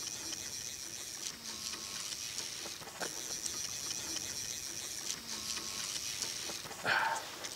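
Fly reel's click drag ratcheting in a fast, steady buzz as line runs through it while a big northern pike is played on the fly rod, easing off briefly a couple of times. A short voice is heard near the end.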